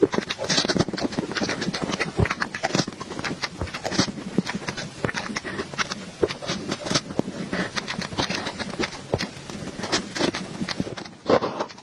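Close-miked chewing and mouth sounds of a person eating cake: many quick, irregular clicks and smacks.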